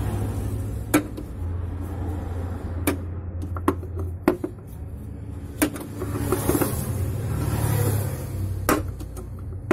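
Scattered sharp metallic clicks and knocks, about seven of them, from a 6 mm socket wrench working the screw of a hose clamp on a car's fuel-tank vent hose, over a steady low hum.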